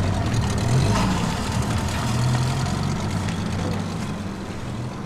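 Boat engine idling with a steady low hum, easing off a little near the end.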